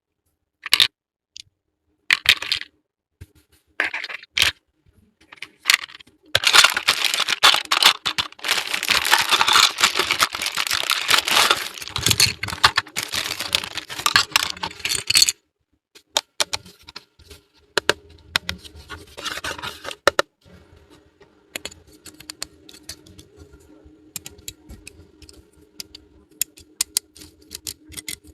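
Small plastic toy pieces clicking as they are handled, then about nine seconds of continuous crinkling and scraping of plastic packaging that stops suddenly. Afterwards come scattered light clicks over a faint steady hum.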